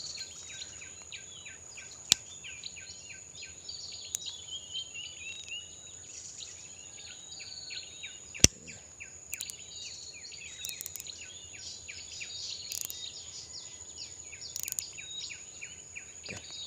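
Wild birds chirping and calling over a steady high insect drone, with a few sharp clicks, the loudest about eight seconds in.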